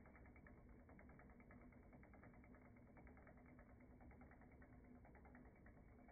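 Near silence: faint room tone with a steady low hum and a fine crackle throughout.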